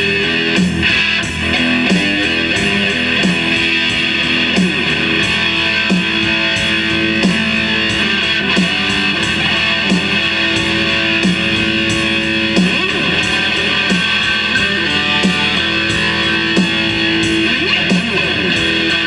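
Electric guitar playing a blues tune instrumentally, with a steady beat.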